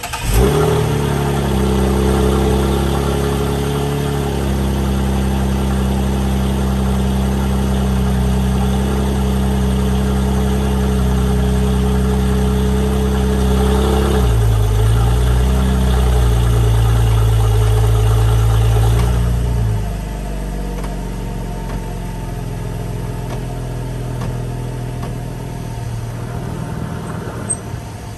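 Cadillac ATS 3.6-litre V6 engine running just after start-up, heard from under the car by the rear differential and exhaust. It holds a steady high idle, shifts in pitch about halfway through, then drops to a quieter, lower run about two-thirds of the way in.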